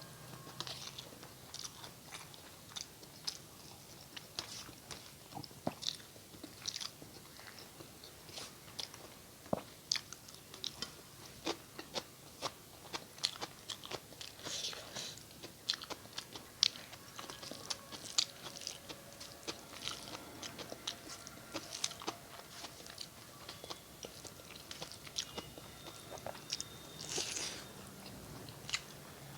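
Close-up eating sounds of a person chewing and biting mouthfuls of rice and curry: irregular wet smacks and mouth clicks, several a second, with now and then a louder crunch.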